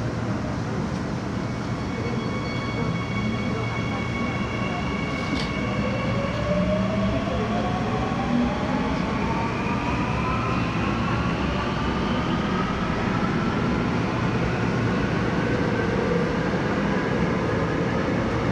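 Seoul Line 9 9000-series electric subway train running through a tunnel with a steady rumble. From about six seconds in, its traction motors whine in a steadily rising pitch as the train speeds up.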